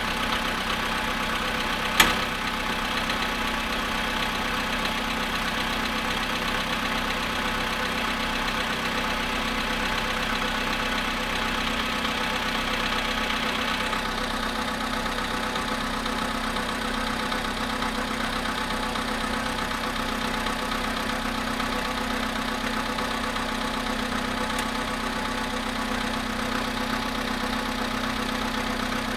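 Volkswagen Polo sedan engine idling steadily after standing 13 hours in near-freezing cold, with the engine knock the owner is recording. A single sharp click about two seconds in.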